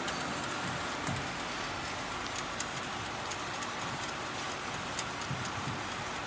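Aerosol can leak-testing line running: a steady machine hiss and hum, with irregular sharp clicks as cans and conveyor parts knock together.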